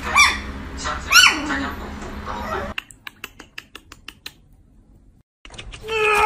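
Toy poodle puppy giving a few high, squeaky yips that rise and fall in pitch, then light clicking of its claws on a wooden floor as it trots off.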